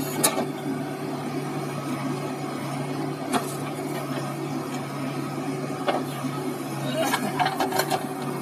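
Diesel engine running steadily under the work of a JCB 3DX backhoe loader, with a few sharp knocks as the bucket digs into the soil and a burst of clatter near the end as the bucket load of soil and clods drops into the steel tractor trolley.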